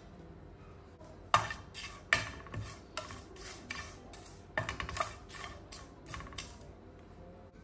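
Wooden spatula stirring dry bay leaves and cinnamon bark around a nonstick frying pan, drying the washed spices over the flame: a quick run of scraping, rustling strokes, starting about a second in and stopping about a second before the end.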